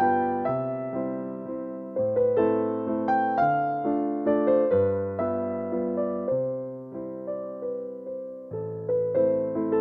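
Background music: a gentle piano melody over bass notes that change every second or two.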